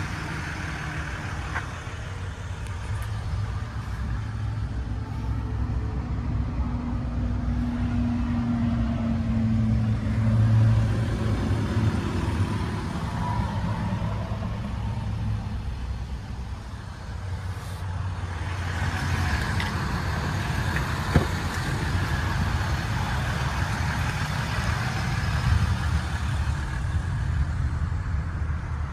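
Ram 1500 EcoDiesel's 3.0-litre V6 turbodiesel idling, a steady low rumble, with one sharp click about two-thirds of the way through.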